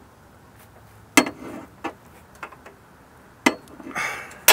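Sharp metallic clicks and knocks of a breaker bar and sensor socket on a seized exhaust NOx sensor, spaced about a second apart as the bar is worked and pulled. The loudest crack comes near the end, as the sensor breaks loose.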